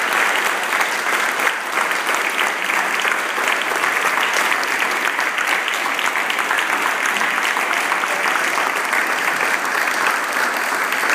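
Sustained audience applause, many people clapping their hands at once, steady and even.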